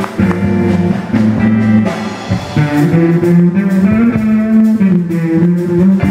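Live band playing: electric keyboard, drum kit and bass guitar, with sustained melodic notes over a steady bass line and drumbeat.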